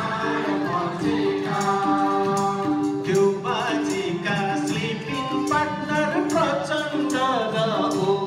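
A mixed group of men and women singing a Nepali deusi-bhailo festival song together in chorus, over instrumental accompaniment with a steady beat.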